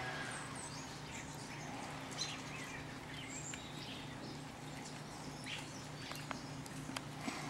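Outdoor ambience with faint, scattered short bird chirps over a steady low hum, and a few sharp ticks near the end.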